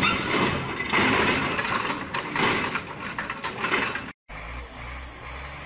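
Crawler excavator clanking and rattling as it travels on a concrete road, with dense irregular metallic knocks. About four seconds in this cuts off and a quieter, steady low diesel engine hum follows.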